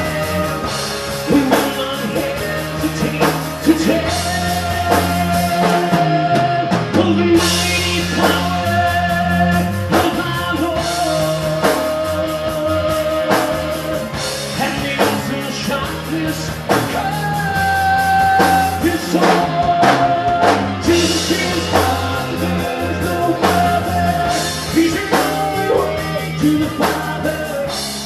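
Live rock band playing a song: drum kit, bass and electric guitar, with long held melody notes over a steady beat.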